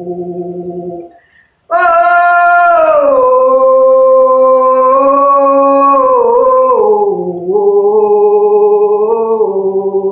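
A woman's voice in long, wordless sung tones (light language toning), each note held steady with slow slides in pitch. She breaks off for a breath a little over a second in, comes back on a higher note, and slides back down to the lower pitch around seven seconds in.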